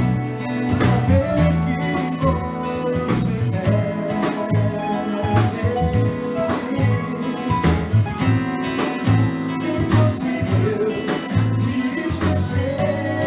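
Music playing: a song with guitar, a steady beat and a singing voice.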